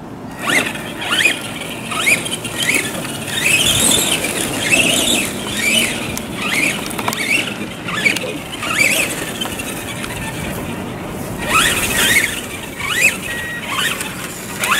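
Electric motors of radio-controlled trucks whining, rising and falling in pitch again and again as the throttle is worked, with a hiss of the wheels on grass.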